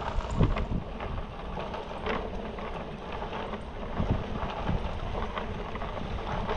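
Mountain bike rolling down a trail, heard from a bike- or body-mounted action camera: wind buffeting the microphone over tyre noise, with scattered knocks and rattles as the bike hits bumps.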